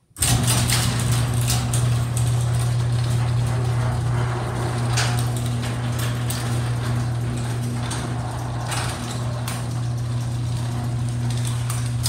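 LiftMaster garage door opener motor humming steadily as it drives the sectional metal door along its tracks, with light knocks and rattles from the moving door. It starts abruptly and cuts off about twelve seconds later.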